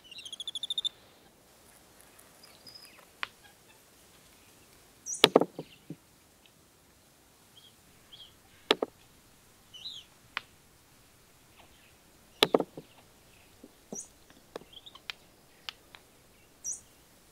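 Bearded capuchin monkeys pounding palm nuts with heavy stone hammers on a sandstone anvil. Sharp knocks come a few seconds apart: the loudest is a quick double strike about five seconds in, with single strikes near nine and twelve and a half seconds in and lighter taps between. Birds chirp faintly in the background.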